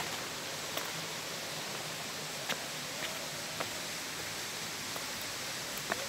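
Steady rush of a waterfall and its stream, with a few faint clicks of footsteps on the rocky trail.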